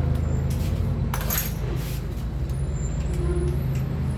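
A few light metallic clinks and scrapes of parts and tools, made while a motorcycle's front fork tube is being worked loose, over a steady low hum.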